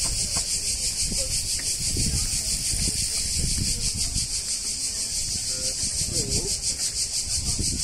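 Loud, steady chorus of cicadas, a high hiss with a fast even pulsing, over a low rumble.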